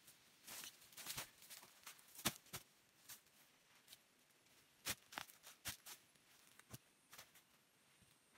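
Faint, scattered rustles and knocks of hairy cu li fern rhizomes being handled and dropped into a woven plastic sack, with the sharpest knock a little after two seconds in.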